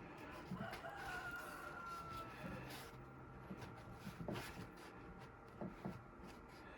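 Faint clicks and light taps of small pump parts being handled and fitted back together, with a faint high tone that falls slightly in pitch for about a second and a half near the start.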